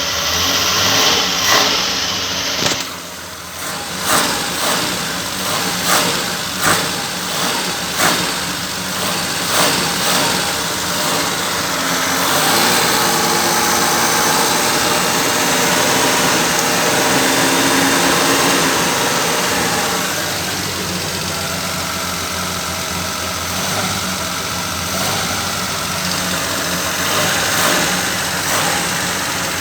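Car engine running, revved in short blips about every second and a half. About twelve seconds in it is held at a higher speed for several seconds, then let back down to idle, with a few more blips near the end.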